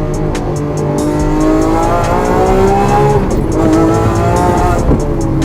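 Lamborghini Aventador SVJ's V12 engine accelerating hard: the revs climb, drop at a gear change about three seconds in, then climb again.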